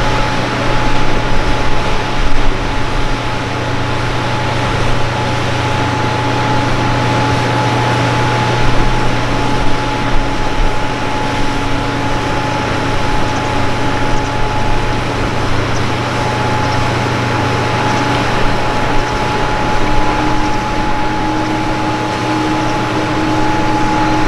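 Steady mechanical hum with a rushing noise and a constant high whine; a fainter middle tone steps up slightly in pitch about twenty seconds in.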